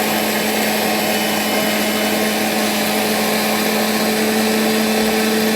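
A 1000-watt Hindustan blender's motor running at full speed, grinding whole dried turmeric into powder: a steady whine over a dense rushing noise.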